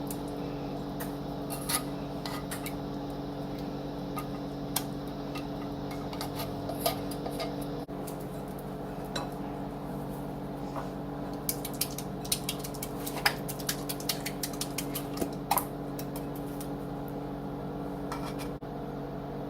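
Kitchen clatter as cans of cream of chicken soup are handled and emptied into a mixing bowl: scattered clinks and taps of metal against the bowl, coming thick and fast a little past halfway, over a steady low hum.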